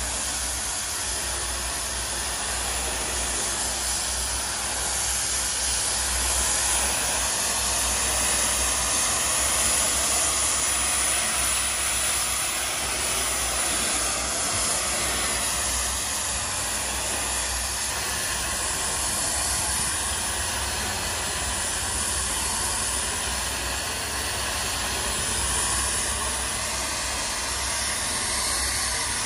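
DOFF superheated steam cleaner's lance blasting steam onto concrete patio tiles, a steady hiss.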